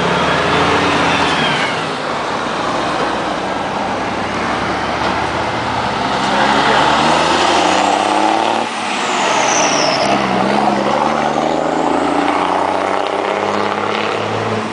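Heavy diesel trucks driving past one after another, their engines pulling with notes that rise and fall in pitch. About nine seconds in, a high whistle falls in pitch.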